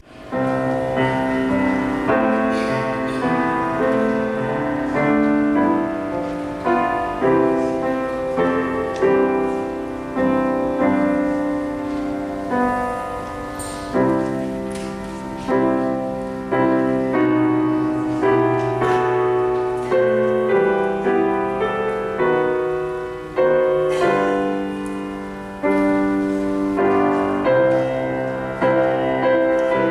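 Piano playing a slow piece in chords, each group of notes struck and then left to fade.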